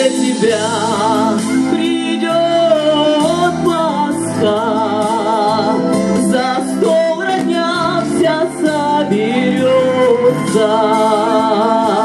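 A woman singing with vibrato through a microphone and PA, over an amplified accompaniment with a keyboard-like sound, in a slow Russian song.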